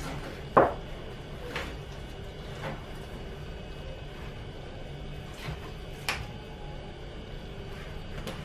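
A kitchen knife cutting and prying into the fibrous core of a halved jackfruit: a few short sharp knocks and scrapes, the loudest about half a second in and another clear one about six seconds in, over a steady low hum.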